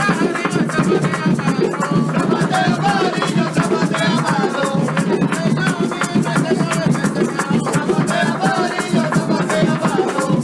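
Background music with a steady beat and maracas.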